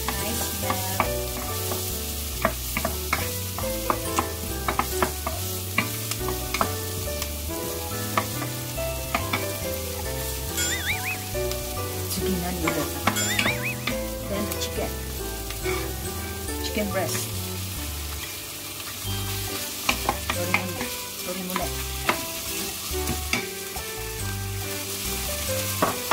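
Diced onion frying and sizzling in olive oil in a frying pan, stirred with a wooden spatula that clicks and scrapes against the pan again and again. Diced raw chicken is tipped in partway and fries along with the onion.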